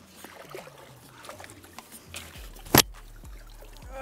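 A hooked fish being played and netted in the margin: faint splashing and water movement, with one sharp, loud knock about three-quarters of the way through.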